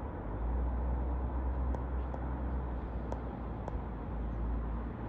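Road traffic: a car approaching along the street over a steady low rumble, with a few faint short clicks.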